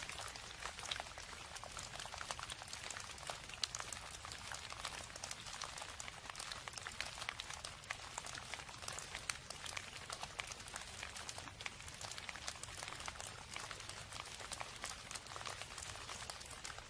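Steady rain falling, with many small drops ticking as they land.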